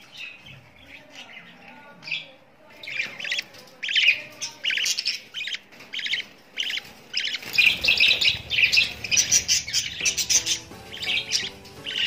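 Budgerigars chirping: a fast run of short, sharp chirps that gets busier and louder partway through. A low rumbling noise runs underneath in the second half.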